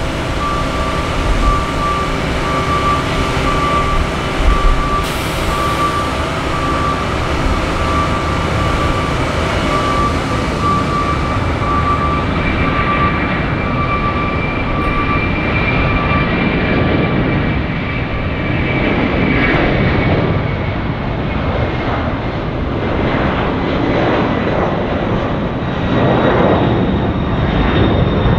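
Airbus A300 freighter's twin jet engines at takeoff power through the takeoff roll and lift-off: a steady, loud engine noise with a high whine that fades after about ten seconds. The sound then turns duller and wavers as the plane climbs away.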